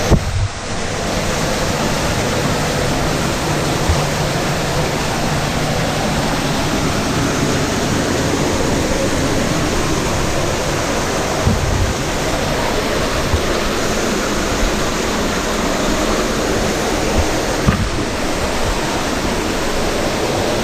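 Steady, loud rush of an underground waterfall in a cave passage, with a few brief knocks over it.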